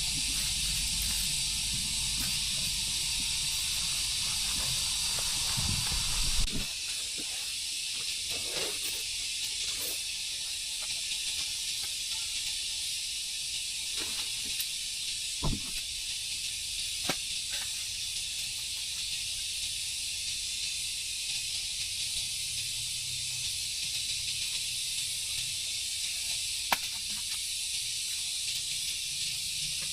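A steady high-pitched hiss with a low rumble under it that cuts off suddenly about six seconds in, and a few faint clicks and knocks scattered through it.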